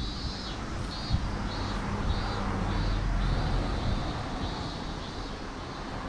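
Outdoor ambience: a low rumble that swells about halfway through and then fades, under a high chirping call repeated about twice a second.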